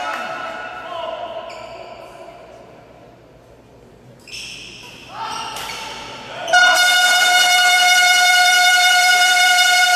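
A loud, steady horn-like tone that fades away over the first few seconds. Later a tone slides up in pitch and settles, about six and a half seconds in, into a loud held note.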